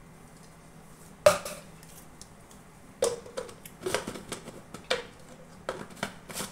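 A plastic mixer-grinder jar knocked down onto a wooden chopping board about a second in, then a run of plastic clicks and scrapes as its blade lid is fitted and twisted onto the jar.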